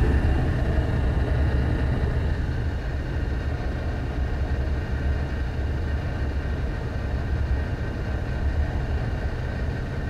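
Gas furnace running with its burners firing: a steady low hum and rumble.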